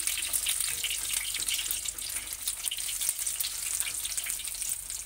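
Besan-battered cabbage rolls sizzling and crackling as they deep-fry in hot oil on a high flame.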